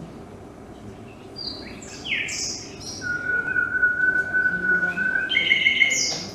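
Recorded bird calls: a few chirps and falling whistles, then one long steady whistle of about two seconds, followed by more chirps.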